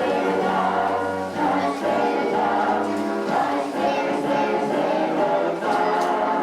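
A group of voices singing together in chorus over instrumental accompaniment, holding sustained notes.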